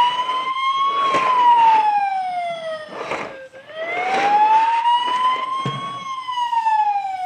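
Toy fire truck's electronic siren sound effect, a slow wail that rises and falls twice, with a few light clicks over it.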